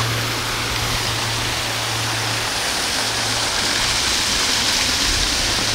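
Steady rushing of flowing river water, with a low steady hum underneath.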